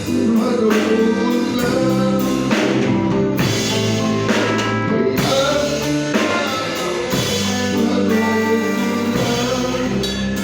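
A song with singing over a band with a drum kit, in the style of a worship song.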